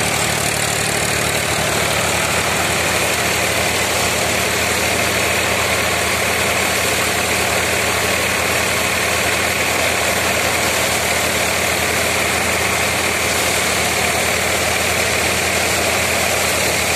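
Tractor-driven Swan Agro paddy thresher running steadily under load: the tractor engine's even beat under the constant rush of the threshing drum and blower as paddy is fed in and chaff is blown out of the chute.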